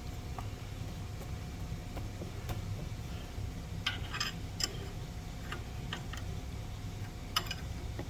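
Small metallic clicks and taps from metal parts and tools being handled on a milling machine fixture: a quick cluster about four seconds in, and one sharper click near the end, over a low steady hum.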